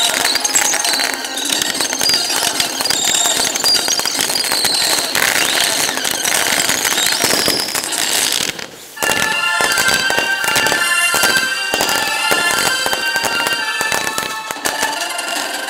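Fireworks display: a dense, continuous barrage of bursts and crackles, with music played along to the show. About eight and a half seconds in the barrage briefly drops, and after it the music's held notes come through plainly over the crackling.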